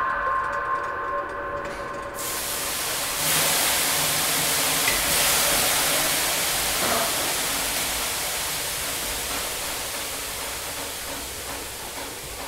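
A steady rushing hiss comes in about two seconds in, swells a second later and then slowly fades; held musical tones play before it.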